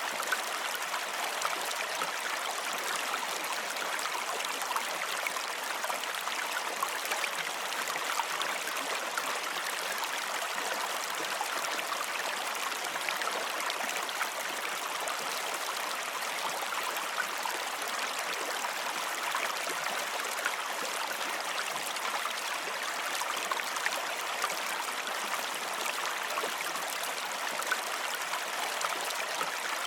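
Running water, a steady rushing and trickling like a stream, unchanging throughout.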